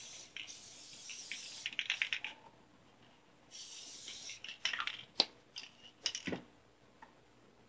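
Aerosol spray adhesive hissing in two sprays, the first during the opening couple of seconds and the second starting about halfway through. Sharp clicks and rattling knocks of handling come in between and after.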